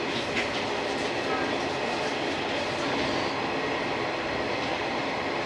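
JR 185 series electric train running at speed, heard from inside the driver's cab: a steady rumble of wheels on rail.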